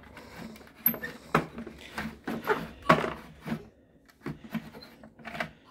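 Plastic mixing drum of a Tonka cement mixer toy truck being turned by its small hand lever, giving irregular plastic clicks and knocks.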